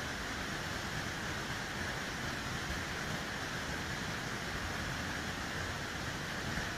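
Flash-flood river water rushing past in a steady, unbroken torrent.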